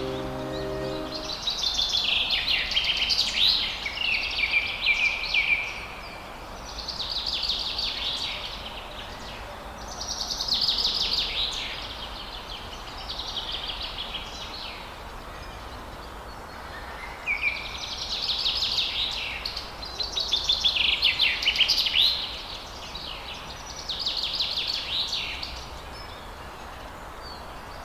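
Birds singing in repeated phrases of rapid high chirps, each lasting one to four seconds with short pauses between, over a steady hiss of rain and running stream water. A few notes of soft music fade out about a second in.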